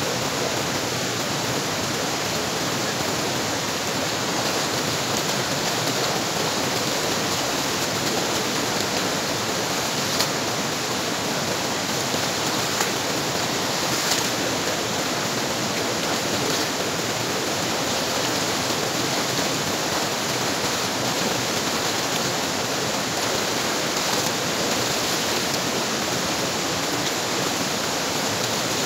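Shallow rocky stream rushing steadily over stones, with a few faint splashes as a wet woven sack is dipped, lifted and swung in the water.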